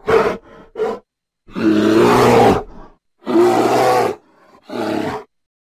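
Bear growling in five calls: two short ones in the first second, then two longer ones of about a second each, and a shorter last one near the end.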